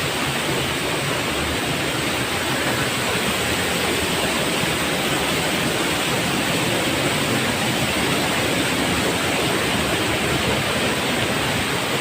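Steady rush of a waterfall: an even, unbroken roar of falling water.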